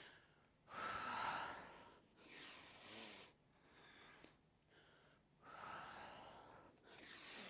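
A woman's faint, audible breathing as she paces her breath to a yoga cobra twist: four breaths, each about a second long, with a pause of about two seconds in the middle.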